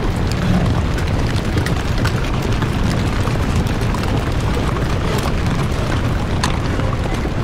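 Rain falling steadily on a canvas tent canopy: a dense hiss scattered with sharp drop taps, over a low rumble.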